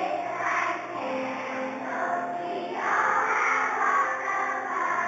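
A large group of young children singing together to a musical accompaniment, a little louder from about three seconds in.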